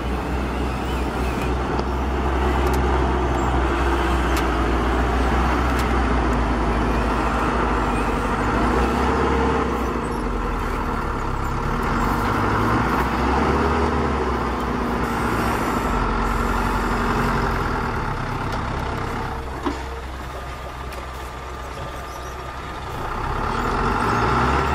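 Radio-controlled model dump trucks running over dirt, their electric motors and gearboxes whining and rising and falling in pitch with the throttle. The sound drops quieter for a few seconds near the end, then the whine picks up again.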